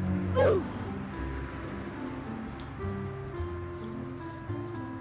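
Background music with crickets chirping in a steady pulse, about two to three chirps a second, starting under two seconds in. A short sliding voice-like sound comes near the start and is the loudest moment.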